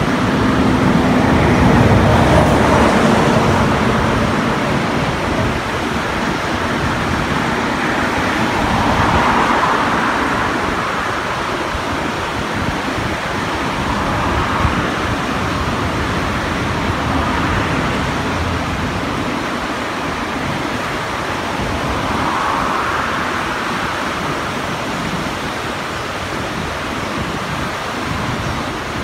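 Steady rushing of a rain-swollen, muddy river, with a motor vehicle passing about two seconds in and a few slower swells of noise later on.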